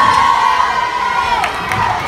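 Crowd of spectators in a school gym cheering and yelling loudly and steadily during a basketball game.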